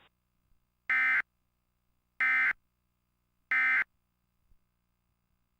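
Emergency Alert System end-of-message (EOM) data bursts: three short, identical bursts of buzzy digital screech, about a second and a quarter apart, marking the end of the alert broadcast.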